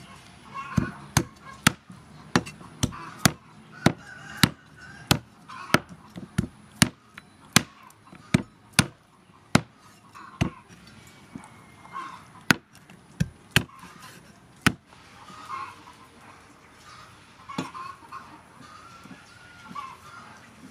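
Steel meat cleaver chopping through raw poultry and bone on a wooden chopping board, sharp chops about two a second, pausing briefly about ten seconds in and then a few more, the last near the end. Fowl call faintly in the background.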